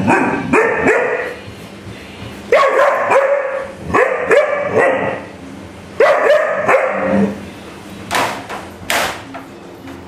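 Alaskan Malamute puppy shouting: three runs of short, swooping bark-and-woo calls, each run a second or two long, then two short noisy bursts near the end.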